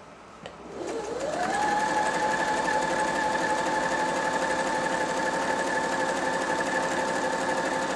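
Janome 525S sewing machine starting to sew about half a second in, its motor whine rising in pitch over about a second, then running steadily at speed while stitching a stretch stitch.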